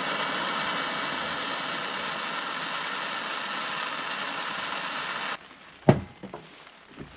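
Handheld gas torch flame hissing steadily while heating a threaded plug in a diesel injection pump's end cover to loosen it. The hiss cuts off abruptly about five seconds in, followed by a single sharp knock on the wooden workbench and a few light clicks.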